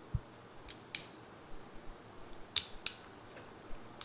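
Mini locking pliers being worked by hand: several sharp metallic clicks, mostly in close pairs, as the jaws snap shut and release.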